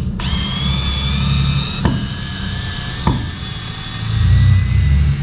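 Power drill with a screwdriver bit running steadily, a high whine, backing stainless steel wood screws out of a boat's planking, with two sharp clicks about two and three seconds in.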